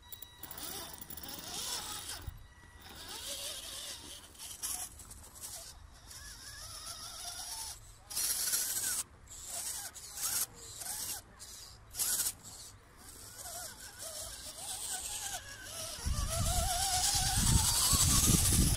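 The electric motor and gears of an HSP 1/10-scale RC crawler whine, rising and falling in pitch with the throttle, over scraping noise from the tyres in snow. Near the end it is louder and closer, with a low rumble and a rising whine, as the stock tyres spin in the snow without grip.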